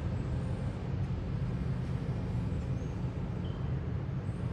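Heavy demolition machinery running, a steady low engine rumble with no breaks or impacts.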